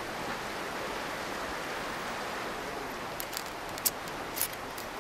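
Electric arc between carbon rods fed from a car battery, hissing steadily, with a few sharp crackles near the end, as it heats gold to melt it.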